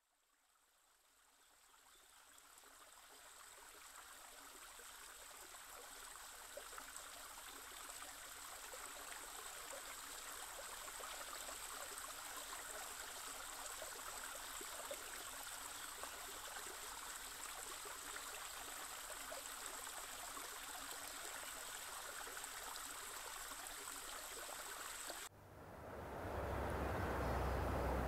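Shallow mountain creek running over rocks: a steady rushing, trickling hiss that fades in over the first few seconds. About 25 s in it cuts to a louder, deeper rumble.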